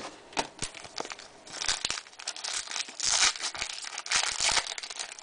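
A foil trading-card pack wrapper being torn open and crinkled by hand: a run of sharp crackles, with louder tearing bursts near the middle and again toward the end.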